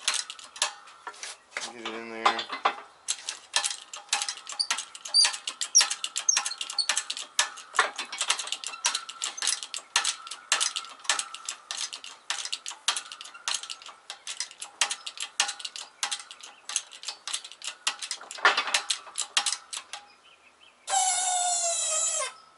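Metal insert being pressed into a VW MK4 control-arm bushing on a 20-ton hydraulic shop press: a rapid, irregular run of clicks and ticks of metal parts working. Near the end comes a loud squeal of about a second and a half that falls slightly in pitch.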